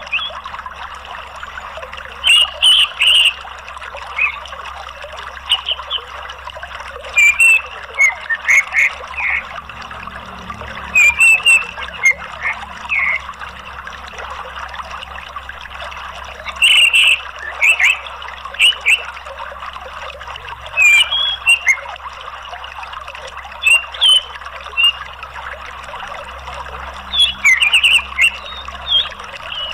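Orange-headed thrush calling in short bursts of chirps and chatter every few seconds, over a steady rush of flowing water.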